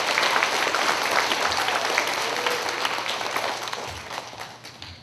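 Applause from a crowd: many hands clapping together, dying away near the end.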